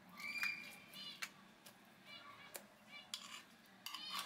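Metal spoon scooping thick pastry cream from a ceramic bowl: scraping with short high squeaks and a few sharp clinks against the bowl.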